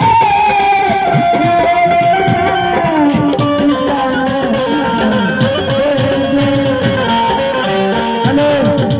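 Instrumental music of an Indian stage show: tabla playing, its bass strokes sliding down in pitch, under held melody notes.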